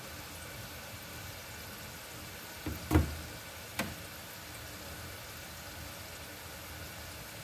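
Two knocks in a kitchen, a loud one about three seconds in and a lighter one just under a second later, over a steady low hiss.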